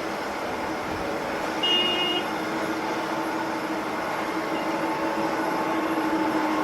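Jet airliner engines running at an airport: a steady roar with a held hum and a faint whine that edges up in pitch later on, and a brief high chirp about two seconds in.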